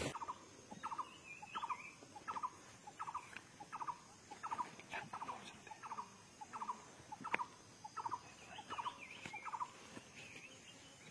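An animal calls a short, rapidly pulsed note over and over, about three notes every two seconds, stopping near the end. A couple of sharp cracks sound now and then.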